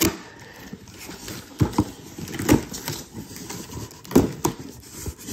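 Cardboard shipping box being opened by hand: packing tape and a tear strip ripped along the flaps, with rustling and about five sharp knocks of the cardboard.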